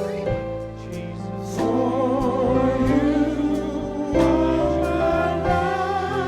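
Church worship music: sustained chords with singing voices that come in about one and a half seconds in.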